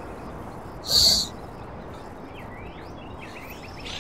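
A bite of crunchy food gives one short, loud crunch about a second in. Faint bird chirps sound in the background.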